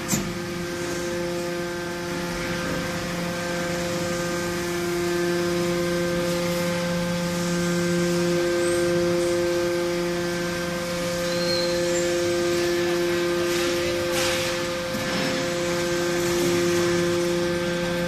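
Scrap metal baler's hydraulic power unit (electric motor driving the hydraulic pump) running with a steady whining hum while the rams push. The lowest tone steps slightly about eight seconds in.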